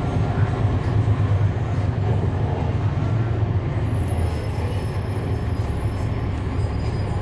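Cummins ISL9 diesel engine of a 2011 NABI 40-SFW transit bus running steadily, heard from on board as an even low drone.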